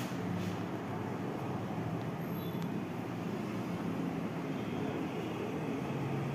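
Steady background room noise: a low hum under an even hiss, with no change.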